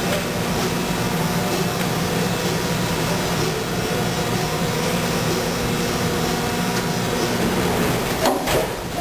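Injection molding machine running with a steady hum while its stack mold is clamped shut, then two or three sharp clunks near the end.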